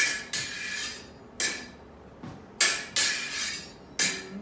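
Steel smallsword blades clashing: about six sharp metallic clinks with a short ring, some in quick pairs, as one blade beats on the other and is parried.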